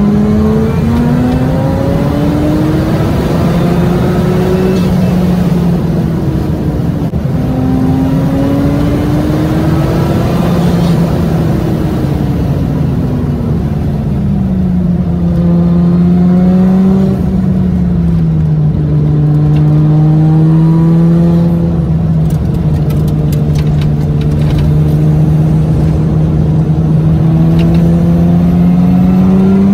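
Mazda RX-7 FD's twin-turbo rotary engine heard from inside the cabin while driving, its sound sped up to one and a half times normal speed so it sounds higher-pitched. The engine note climbs and drops sharply at gear changes, slides down as the car eases off, then holds steady for a long stretch before climbing again near the end.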